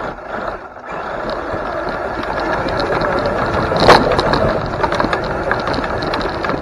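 Electric motor and geared drivetrain of a Traxxas TRX-4 Sport RC truck, running on a 3S battery through a Spektrum motor and ESC, whirring steadily as it drives over grass. The sound dips briefly just under a second in, and a short loud sound stands out about four seconds in.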